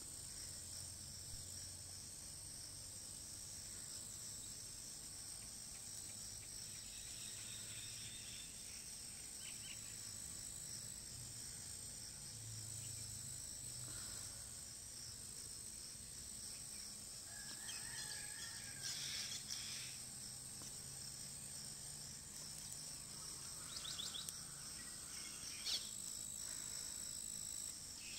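Steady high-pitched chirring of insects in the grass, with a few brief bird chirps in the second half.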